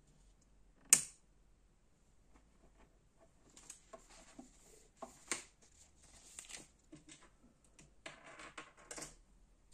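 Clicks from the front-panel rotary knobs and switches of a homemade valve tester: one sharp, loud click about a second in, then a run of lighter clicks. Near the end, a printed paper chart rustles as it is handled.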